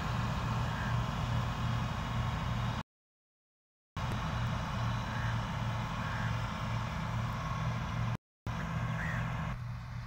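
Combine harvester running steadily as it harvests wheat: a continuous low engine drone. The sound cuts out abruptly for about a second roughly a third of the way in, and again briefly near the end.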